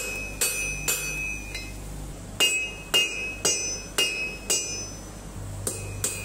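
Blacksmith's hand hammer striking red-hot iron on an anvil while forging the neck and beard of an axe blade. Ringing blows come about two a second, with a pause after the first two, then lighter, quicker taps near the end.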